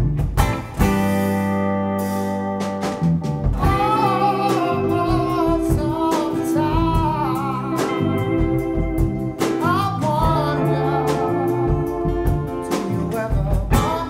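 Live performance of an original song: a guitar playing held chords, joined about three and a half seconds in by a voice singing a wavering melody.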